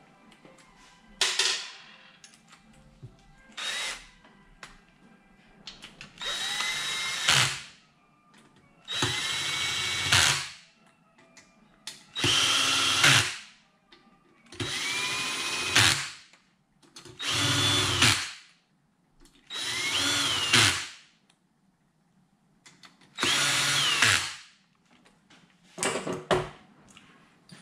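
Ryobi cordless drill/driver spinning in about seven short runs, each rising in pitch as it starts, with a few brief blips of the trigger in between, driving the 6 mm screws into the aluminium crankcase halves.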